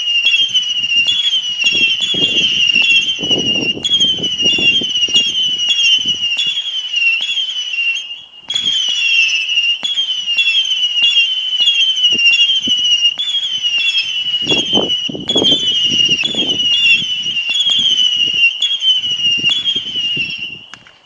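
Festival 240-shot firework barrage firing a long salvo of whistles: overlapping high whistles, each sliding slightly down in pitch, about two or three new ones a second, over dull launch thumps. The whistling breaks off briefly about eight seconds in, then resumes, and dies away near the end.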